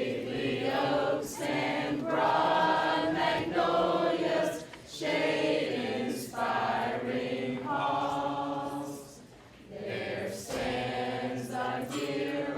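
A choir singing in long held phrases, with a short break between phrases about nine seconds in.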